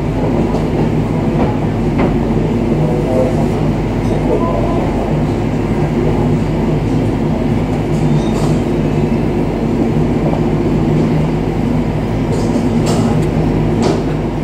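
BAe Jetstream 32's Garrett TPE331 turboprop engines running at taxi power, a loud, steady propeller drone.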